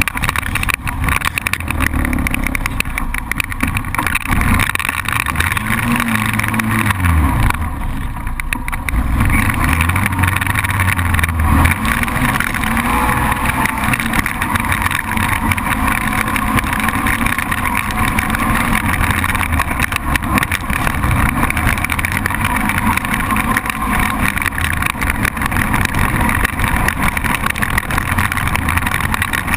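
Single-cylinder ATV engine running under way. Its pitch rises and falls a few times about a quarter of the way in, then holds steadier, over a constant rush of noise.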